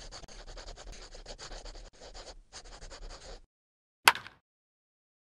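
Fast, repeated rubbing strokes that stop about three and a half seconds in, followed by one sharp click.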